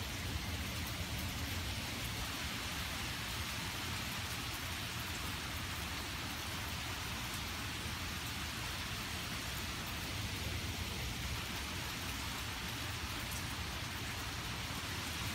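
Rain falling steadily during a thunderstorm, a constant even hiss.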